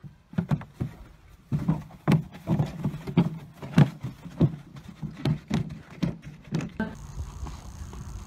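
Horse playing with a large plastic tub: an uneven run of thumps and knocks, about three a second, as hooves and the tub strike the ground. The knocking stops near the end.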